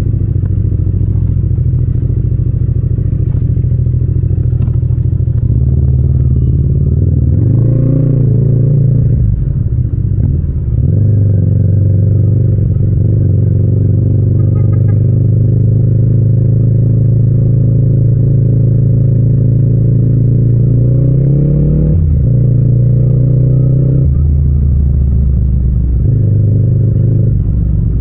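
Yamaha MT-07's parallel-twin engine running steadily while riding slowly, heard raw without wind noise. The engine note shifts briefly as the revs change, about eight seconds in and again about twenty-two seconds in.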